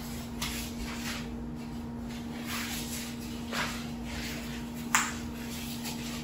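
Soft swishes of jacket fabric and body movement as a person turns around, several brief rustles with one sharper click about five seconds in, over a steady low electrical hum.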